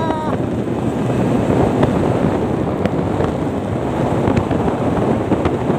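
Wind buffeting the phone's microphone on a moving motorcycle, a steady rush over the engine and road noise underneath. A brief high tone sounds right at the start.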